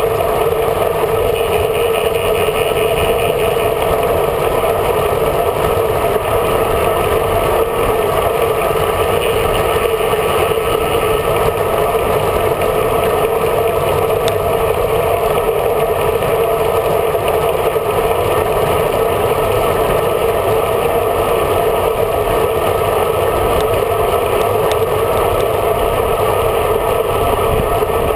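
Steady wind rush and road noise on the microphone of a camera mounted on a road bike riding at speed.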